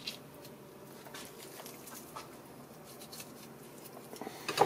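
Boning knife cutting and scraping along the ribs of a raw duck carcass: faint, scattered small scrapes and ticks, with a brief louder sound near the end.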